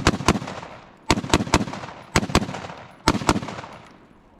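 AR-15 rifle fired rapidly in about nine shots, in four quick groups of two or three about a second apart, each shot with a short echoing tail. The shooter is engaging four targets in turn.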